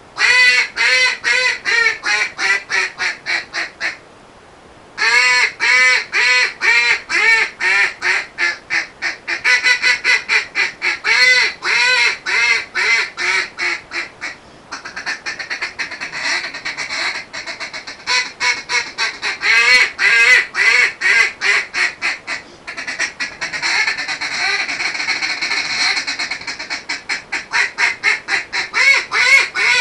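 A hand-blown duck call giving hunting-style ('meat') calling: strings of rapid quacks that fall in pitch across each run, with a break of about a second near four seconds in. In the second half the notes come faster and closer together as a feeding chatter.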